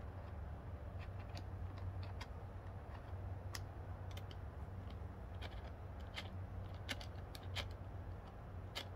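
Irregular light clicks and ticks of small screws being tightened by hand into the plastic base of a motorcycle tank bag, over a steady low hum.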